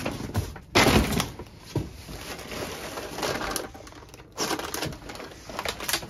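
Stored odds and ends, wood among them, being shifted about by hand in a cluttered shed: irregular knocks, scrapes and rustles. The loudest is a clatter just under a second in, with more handling noises near the end.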